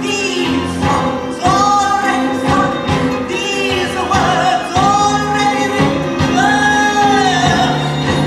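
A woman singing into a microphone with a live band, holding a series of long notes with vibrato, each about a second long.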